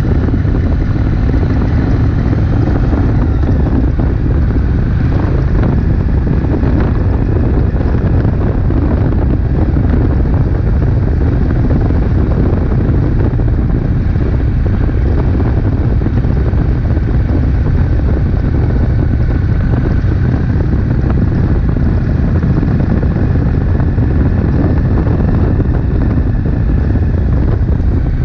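Wind buffeting the microphone over the steady running of a Triumph Street Twin's 900 cc parallel-twin engine while the motorcycle cruises along the road.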